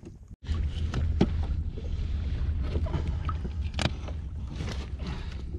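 Wind rumbling on the microphone at sea, with a few sharp knocks and handling clicks from the kayak.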